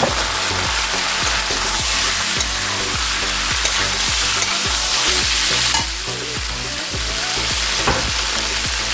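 Sago pearls and potatoes sizzling in hot ghee in a nonstick wok while a metal spatula stirs them: a steady frying hiss with repeated scraping strokes. The sizzle eases a little about six seconds in.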